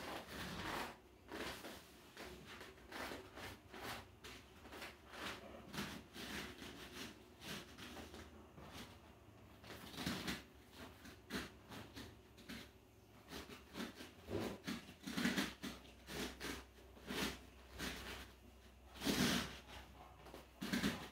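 Bare feet stepping onto and off an inflatable balance disc and a rubber floor: irregular soft thumps and scuffs, with a few heavier landings.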